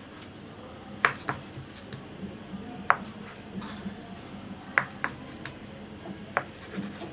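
Knife blade knocking on a chopping board while cutting a slab of set halwa into pieces: about seven sharp, irregular clicks, some in quick pairs.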